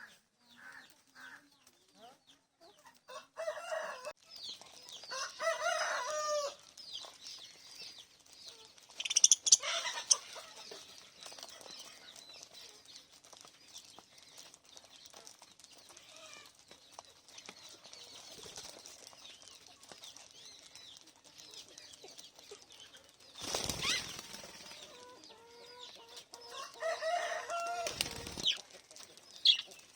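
Small pet parrots in a cage chirping and squawking in scattered bursts, with short flurries of wing flapping about ten seconds in and twice near the end.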